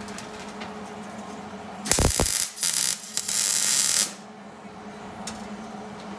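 Welder laying tack welds on a sheet-metal panel: a short burst of crackling hiss about two seconds in, then a longer one lasting about a second and a half, over a steady low hum.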